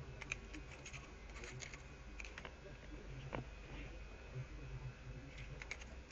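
Faint, irregular small clicks and taps of parts being handled while working on a rotary hammer, over a low steady hum.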